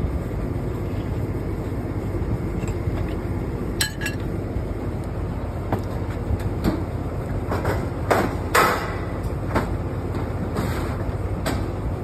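Steel borewell drill pipes clanking and knocking as they are handled, a series of sharp metallic knocks starting about four seconds in, loudest about two thirds of the way through. Under them runs a steady low rumble.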